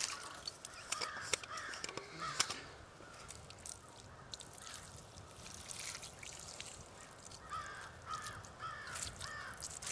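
Water poured from a bottle onto the wet coals and rocks of a doused campfire, trickling and crackling as the ash is soaked. Birds call in two bouts, near the start and again near the end.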